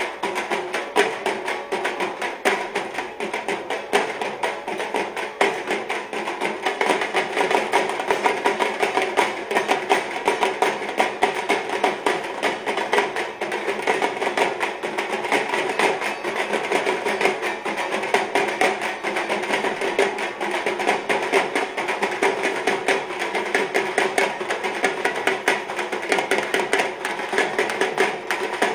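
Music driven by fast, dense percussion beats.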